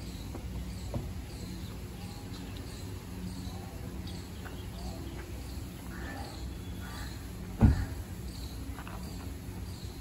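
Short high chirps repeating steadily, about one and a half a second, over a faint low hum. About three quarters of the way through comes a single sharp thump, the loudest sound, which fits a car door being shut.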